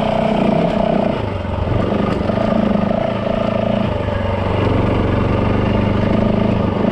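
Yamaha WR450F dirt bike's single-cylinder four-stroke engine running under way, its note shifting a couple of times as the throttle changes.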